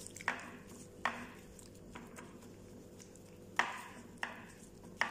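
A utensil knocking against a mixing bowl as chicken in teriyaki marinade is mixed: about six sharp clacks at irregular intervals, the loudest about three and a half seconds in.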